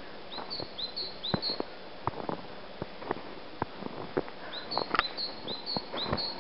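A small songbird singing a high, quickly repeated two-note phrase, a few times at the start and again from about two-thirds of the way in, over scattered crunching clicks of footsteps in snow.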